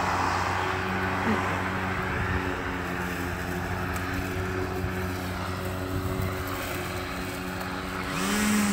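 EGO cordless battery-powered lawn tool (mower or string trimmer) running steadily, a constant electric motor hum.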